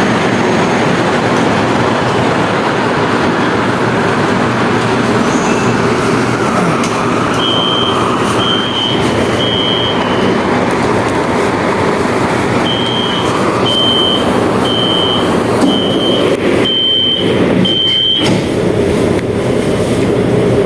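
Passenger train at a station platform, a loud steady running rumble. Partway through comes a run of short high beeps, about one a second.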